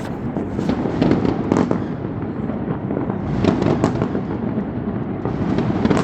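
Fireworks barrage: many shells bursting in quick succession, a continuous rumble of booms with crackles over it and no let-up.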